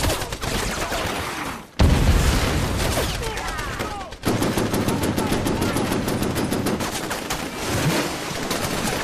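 Battle sound from a war film: dense, rapid machine-gun and rifle fire. It is broken by sudden cuts about two and four seconds in.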